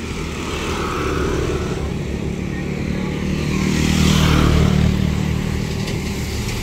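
Motorcycle passing close by: its engine swells to its loudest about four seconds in, then fades.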